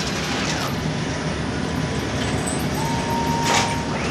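Automatic flatbread dough machine and rotating-plate bread oven running with a steady mechanical rumble. A short whine about three seconds in ends in a sharp clack.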